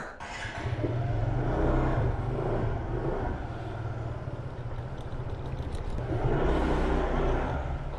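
Aprilia scooter engine running at low speed with a steady low hum, swelling louder about a second in and again near the end.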